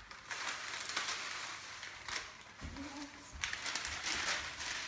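Baking paper rustling and crinkling as it is unrolled from the roll and handled over metal baking trays, in two stretches with a short lull around the middle.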